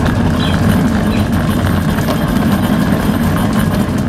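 Hard plastic wheels of a Little Tikes Cozy Coupe ride-on toy car rolling over the floor as it is pushed along by its roof handle: a steady low rumble.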